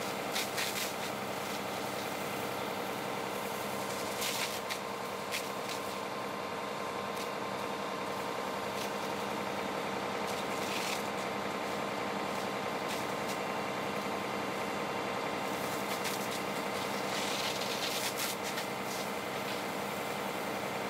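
A heavy vehicle's engine running steadily, with scattered clicks and knocks over it.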